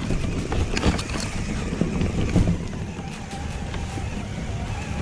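Electric RC crawler truck driving through tall grass, heard from a camera on the truck: drivetrain rumble with grass brushing the body and knocks from rough ground.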